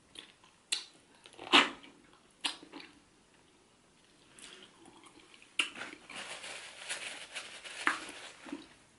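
Close-miked eating sounds from sucking and picking meat off a pepper-soup catfish head: sharp wet smacks and sucks, the loudest about a second and a half in, then a few seconds of continuous smacking chewing near the end.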